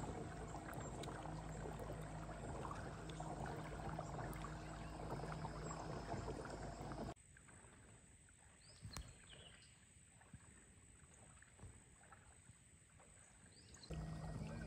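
Ambient sound from a kayak on a calm river: a steady hiss with a low hum. About seven seconds in it cuts abruptly to a much quieter stretch with a few faint, high chirps, and the louder hiss returns just before the end.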